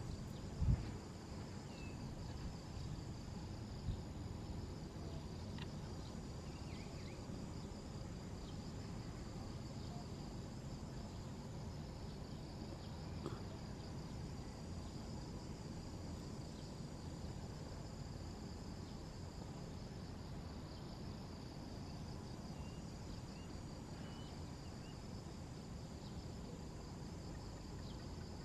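Steady high-pitched chorus of insects over a low rumble, with a single thump about a second in and a few faint short chirps here and there.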